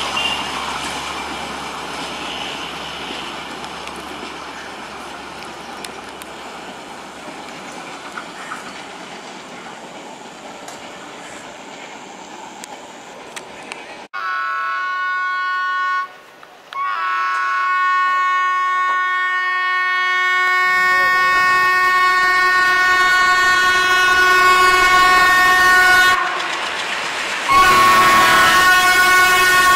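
Passenger coaches roll past with a steady rumble that slowly fades. About halfway through it changes to a diesel locomotive's multi-tone horn: a short blast, then a long held blast, and a further blast near the end. A low engine and wheel rumble grows louder under the horn as the train nears.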